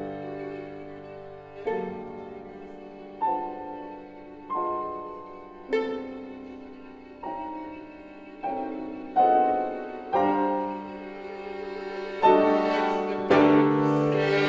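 Violin and C. Bechstein grand piano playing a slow passage of a violin sonata: piano chords struck about every second and a half under held violin notes, growing louder in the second half.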